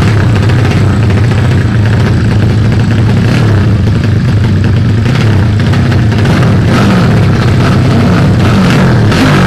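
Drag-racing motorcycle engines running loud at the start line, revving up and down in repeated blips over the last few seconds.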